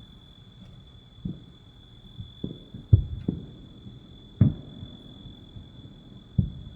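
Distant fireworks booming: about six dull thumps at uneven intervals, the loudest about three and four and a half seconds in. A steady high-pitched insect drone runs underneath.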